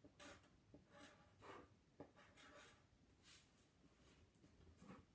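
Faint short strokes of a marker writing on paper, a scratch every second or so over near silence.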